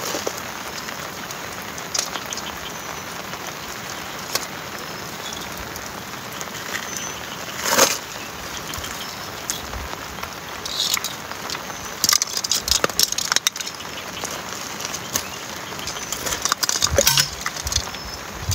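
Steady heavy rain falling, with scattered close clicks and crackles of fishing gear being handled: one louder sharp sound about eight seconds in and bursts of clicking later on.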